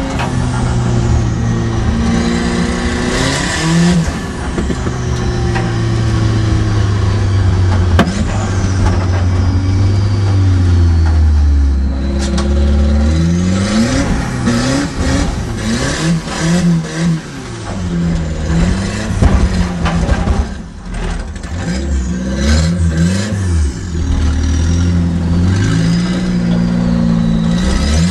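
Turbocharged Nissan CA20ET four-cylinder engine in an S12 Gazelle, heard from inside the cabin, revving hard under load. Its pitch climbs and drops again and again as the car accelerates and comes off the throttle.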